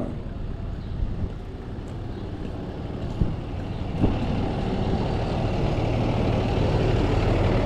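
A large vehicle or machine engine running with a steady low drone. It grows louder from about four seconds in.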